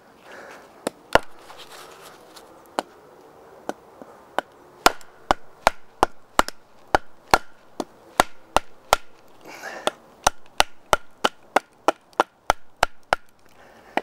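A wooden baton knocking on the spine of a Morakniv Robust knife wedged in a log, batoning it down to split the wood. A few spaced knocks come first, then a fast run of about two to three strikes a second that stops about a second before the end.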